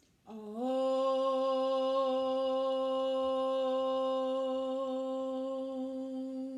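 A single long "Om" chanted by one voice, sliding briefly up into the note and then held at one steady pitch.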